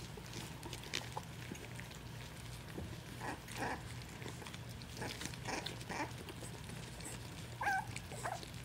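Puppies lapping and smacking at soft, mushy weaning food, heard as scattered short wet clicks, with a brief high puppy whimper near the end. A steady low hum runs underneath.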